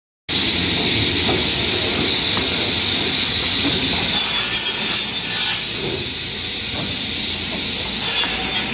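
CNC wood cross-cut saw running with a steady high whine while its pusher feeds a wooden beam, with a burst of hiss about four seconds in and another near the end.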